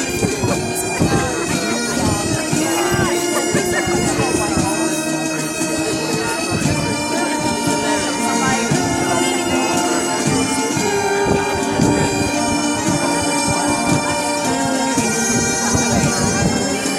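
Military band playing, with sustained wind instruments carrying a melody that moves in steps from note to note over steady short low beats.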